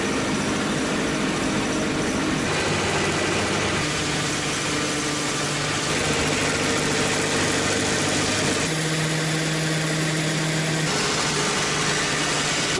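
Log-rounding (cylindering) machine running: its electric motors hum steadily while the cutter head shaves a log with a constant rushing noise. The hum's pitch changes abruptly a few times.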